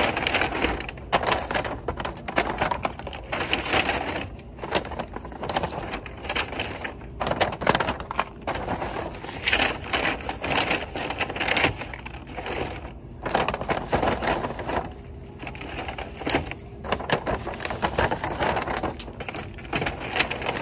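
Brown paper shopping bags rustling and crinkling as goods are packed into them, in irregular stops and starts with small knocks of items set down.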